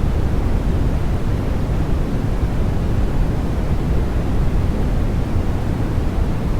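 Continuous, unchanging sleep noise: an even hiss with most of its weight in the low end, deeper than true white noise.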